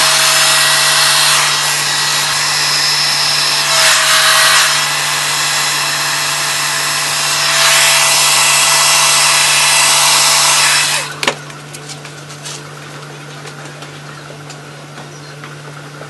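Handheld hair dryer blowing hot air onto hair, a loud steady rush of air with a thin motor whine, louder for a moment about four and eight seconds in. It is switched off with a click about eleven seconds in, leaving much quieter room noise.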